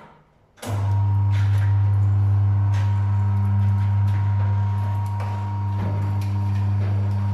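Tyre changer machine's electric motor switched on, driving the turntable: a steady low hum that starts abruptly about a second in and runs on, with a few light knocks from the tyre bead being worked onto the wheel rim.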